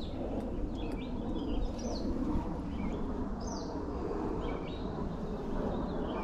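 Wild birds chirping with short, high calls scattered through, over a steady low background rumble of outdoor noise.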